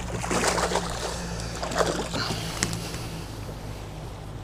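Water splashing and sloshing in short irregular bursts as a hooked fish is fought at the side of the boat, over a steady low hum.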